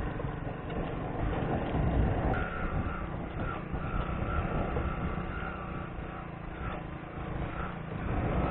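A motor vehicle running, with dense low-pitched noise, and from about two seconds in a repeating high-pitched beep that keeps breaking off and coming back.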